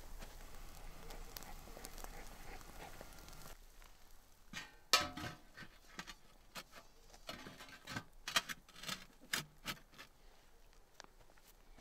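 A steady faint hiss for the first few seconds, then, after an abrupt change, a string of irregular light taps and knocks, the loudest about five seconds in.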